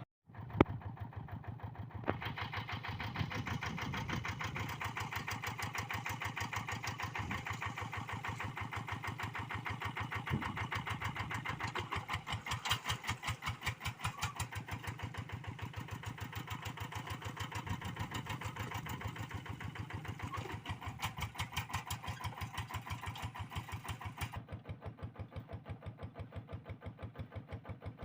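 Kubota RD85DI single-cylinder diesel on a Quick G1000 hand tractor, running steadily with each firing stroke heard as an even pulse. There is a brief gap and a sharp click near the start.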